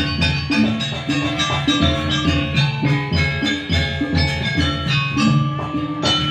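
Live gamelan music: ringing metal keyed instruments play a busy melody over drums, without a pause.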